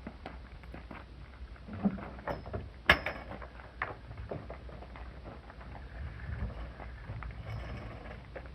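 Scattered knocks and clatter of a kayak and its truck-bed lifter being handled during loading, over a low steady rumble; the sharpest knock comes about three seconds in.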